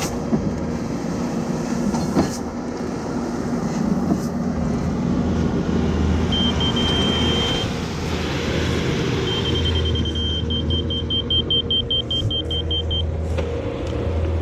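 Diesel engine of heavy earthmoving equipment running steadily under load, with a high warning beeper sounding: one long tone about six seconds in, then rapid beeps, about five a second, in the second half. A few sharp clanks stand out, one about two seconds in and one near the end.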